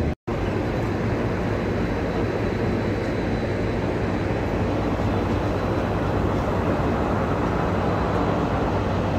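Steady low rumble and hum of a passenger train standing at a platform with its engine running. The sound drops out for a moment just after the start.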